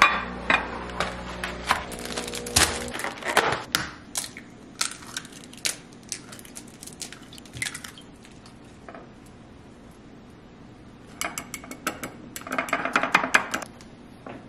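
A glass baking dish knocked down onto a stone countertop, then a run of sharp clicks and knocks as eggs are cracked against it and into it. Near the end comes a quick run of clicking as the eggs are beaten in the glass dish.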